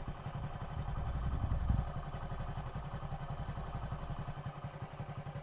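Hero motorcycle's single-cylinder four-stroke engine idling with an even low pulse, rising briefly about a second and a half in.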